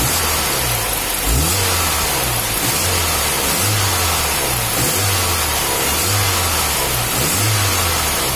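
Hyundai car engine running with light, repeated revs, its note swelling and easing about once a second. The revving circulates the coolant to push engine oil up out of the cooling system.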